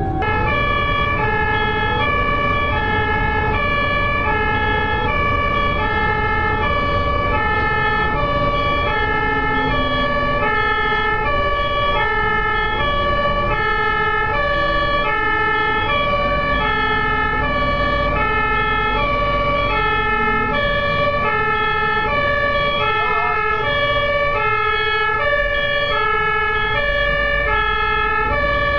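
Ambulance's electronic two-tone hi-lo siren alternating steadily between two pitches, about three-quarters of a second on each, over steady vehicle engine and road rumble.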